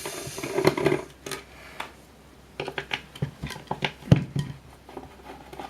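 Hand work on a vintage mobile phone's plastic casing during disassembly: scraping, then a run of clicks and knocks as the housing is worked loose, with a louder knock about four seconds in.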